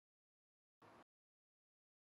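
Near silence, broken once, about a second in, by a brief burst of indistinct sound.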